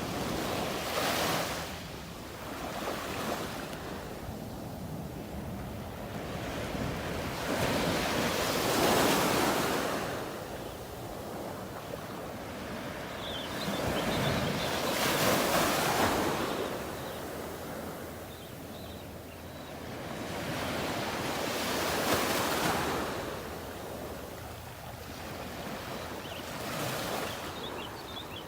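Ocean surf breaking on a beach: the rush of each wave swells and fades about every six or seven seconds, with a steady wash between.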